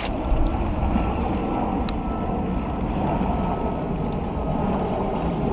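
Wind on the microphone and small waves lapping against shoreline rocks, a steady wash of noise. A faint steady whine runs underneath, and there is a single sharp click about two seconds in.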